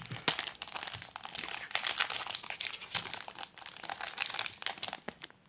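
Plastic snack-pack wrapper crinkling and crackling in the hands as it is worked open, a dense run of small crinkles that stops just before the end.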